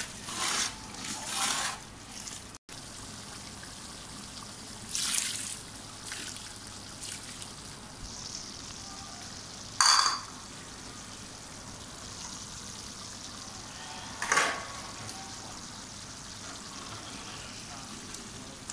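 Chicken pieces splashing into a large aluminium pot of spiced liquid. There are a few short, sharp splashes and knocks, two close together at the start and then single ones spread out, the loudest about halfway through, over a steady faint hiss.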